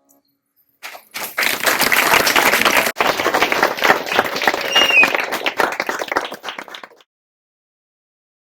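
Audience applauding, many hands clapping; it starts about a second in and fades out after about six seconds.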